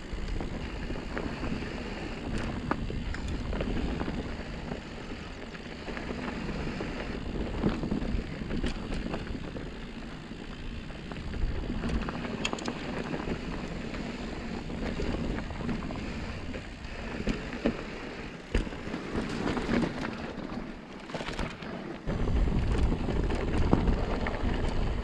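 Mountain bike rolling fast down a dry dirt and gravel trail: steady tyre noise with scattered clicks and knocks from the bike over rocks, and wind rumble on the microphone that grows stronger near the end.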